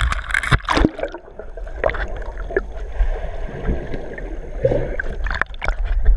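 Pool water sloshing and gurgling around a GoPro in its waterproof housing as it is plunged under the surface. About a second in, the sound turns dull and muffled underwater, with scattered knocks and bubbling.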